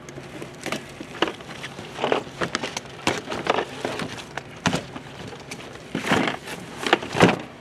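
Cardboard box and packaging being handled as a toy RC boat is pulled out: irregular rustles, scrapes and knocks, about a dozen over several seconds.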